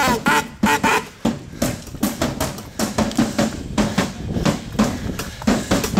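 Running footsteps on a paved path, about two to three a second, mixed with a runner's heavy panting breaths.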